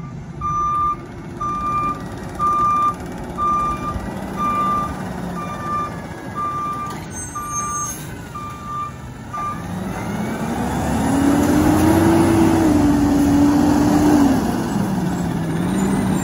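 Diesel garbage truck's reversing alarm beeping about once a second over the idling engine while the truck backs up. About nine seconds in the beeping stops and the engine grows louder as the truck drives forward, its pitch rising, holding, then dropping back.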